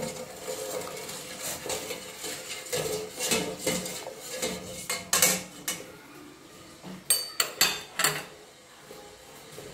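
Metal ladle stirring water in a stainless steel pot, scraping and clinking against the pot's sides and bottom. About seven seconds in, a few sharp clinks as the ladle is set down on a ceramic plate.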